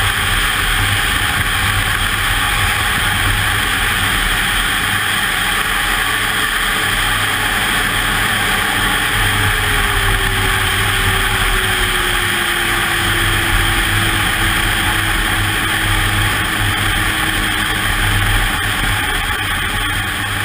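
Ski-Doo snowmobile running at a steady speed: a continuous engine drone with the hiss of track and wind, its note sliding slowly lower over the second half.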